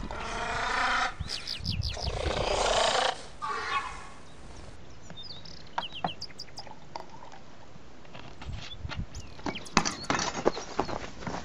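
Dinosaur roar sound effect: two long growling roars in the first few seconds. Near the end comes a quick run of footsteps and scuffs on stony ground.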